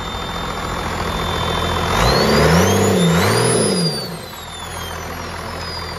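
First-gen Cummins 12-valve turbo diesel inline six in a 1991 Dodge Ram 250, running after ten years of sitting. About two seconds in it is revved twice in quick succession, louder, while a high turbo whistle climbs and then slowly winds back down as the engine settles to idle.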